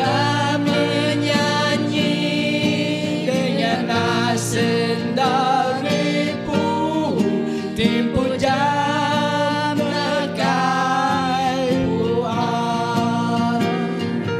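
Small mixed group of men and women singing a Christian hymn in the Bidayuh language, to strummed acoustic guitar.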